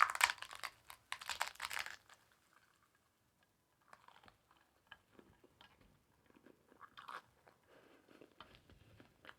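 Biting into a hard-shell taco and chewing it. Loud crunching of the shell comes in the first two seconds, then quieter chewing with scattered small crunches.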